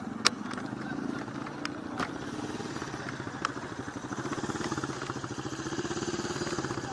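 A small engine running steadily with a rapid putter, rising slightly after about four seconds. A few sharp clicks or cracks sound over it, the loudest about a quarter second in.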